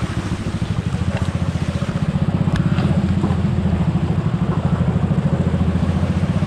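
Small motorcycle engine running steadily as it rides along a flooded street, its firing pulse growing a little louder about two seconds in.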